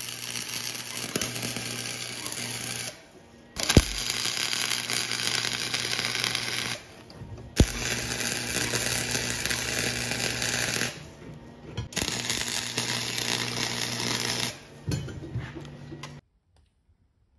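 Electric arc welder crackling and sizzling on steel plate in five runs of a few seconds each, with a steady electrical hum underneath. Sharp snaps come at the start of two of the runs, and the welding stops near the end.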